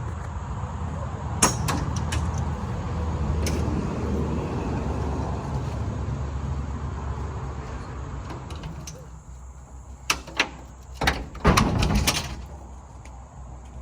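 A vehicle engine running with a low rumble that fades after about eight seconds, then a few sharp knocks and a short clatter near the end.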